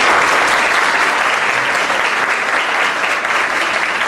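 Audience applauding, a steady burst of many hands clapping.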